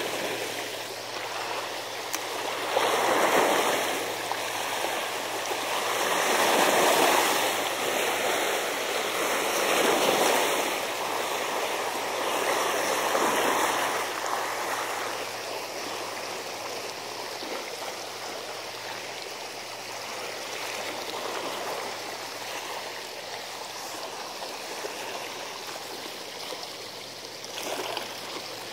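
Seawater washing against a sea wall, swelling and easing about every three seconds through the first half, then settling into a steadier, softer wash.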